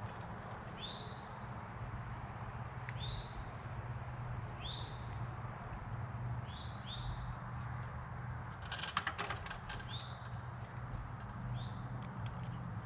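A bird calling outdoors: a short rising-and-falling chirp repeated about every two seconds, over a steady high-pitched drone. A brief burst of clicking or rustling comes about nine seconds in.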